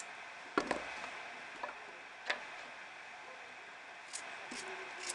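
A knife cutting slices off a raw potato held in the hand, giving a few faint, scattered clicks as the blade goes through and the slices drop into a baking tray.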